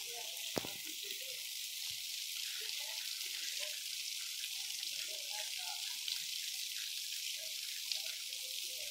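Heavy rain falling steadily, a continuous hiss, with a few sharp taps.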